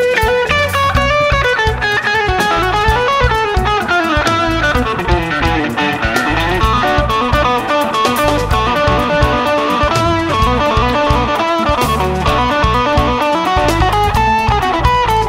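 Band music led by an electric guitar playing a melodic lead with bending notes, over a steady bass and drum beat.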